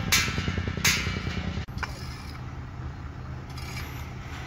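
Two sharp clinks of steel rebar in a column cage, with a ringing tail, over an engine running; a fainter clink comes at about 1.7 s. The sound then cuts to a steady low hum with hoes scraping through loose soil, loudest a little before the end.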